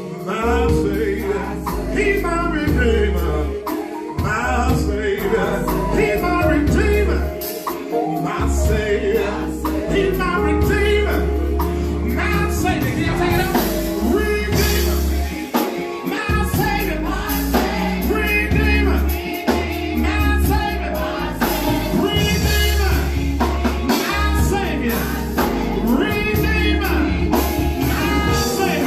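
Gospel music with singing over a heavy bass line and drums.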